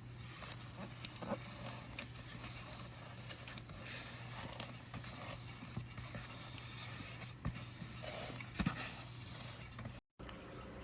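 Scattered sharp clicks and short scraping and rustling noises over a steady low hum, the sharpest click about two seconds in.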